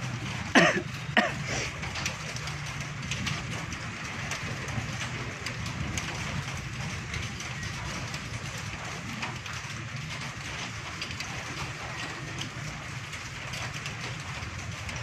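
Steady outdoor background noise, a low rumble under a hiss with faint scattered ticks, after a brief voice sound about a second in.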